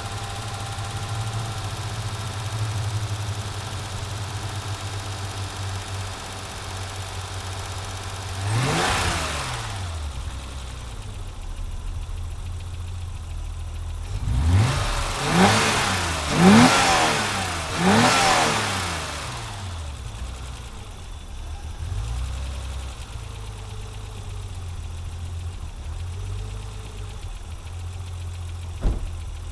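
BMW E30 325is 2.5-litre straight-six idling cold and misfiring, blipped once about a third of the way in, then revved four times in quick succession, each rev rising and falling. A single sharp pop near the end.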